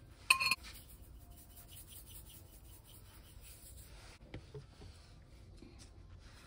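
A single bright, ringing clink on the glass mixing bowl about half a second in, then faint rubbing and scraping handling noises with a few soft ticks.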